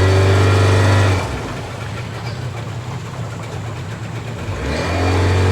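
Boat motor running steadily, with two louder surges of about a second and a half each, one at the start and one near the end.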